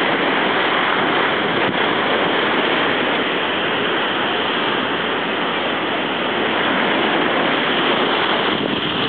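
Ocean surf washing on a beach: a steady, loud rush that swells and eases a little.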